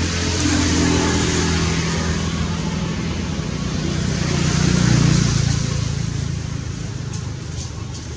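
A motor vehicle's engine running, its pitch shifting and its loudness swelling to a peak about five seconds in, over a steady high hiss.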